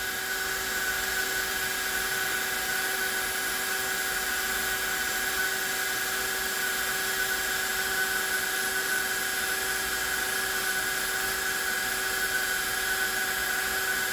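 Hot-air heat gun running steadily at a high heat setting: a constant fan whine over a hiss of blowing air.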